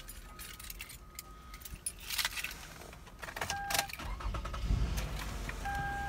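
Car keys jangling and clicking, then the car's engine starting about four seconds in and running low and steady. A steady electronic tone sounds briefly in the middle and again near the end.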